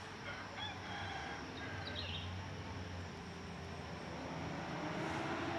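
Roadside ambience at a truck crash site: a vehicle engine running with a steady low hum, and faint voices, growing a little louder near the end.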